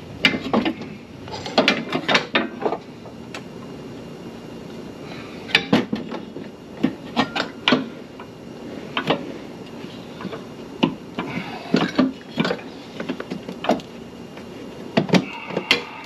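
Irregular metallic clinks and knocks of hand tools and steel suspension parts being worked into place under a car, coming in short clusters a second or two apart.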